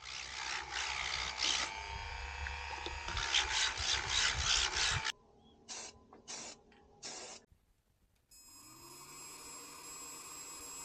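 Hand filing strokes rasping on a workpiece for about five seconds, then three short separate strokes. From about eight seconds in, a steady electrical hum with a thin high whine.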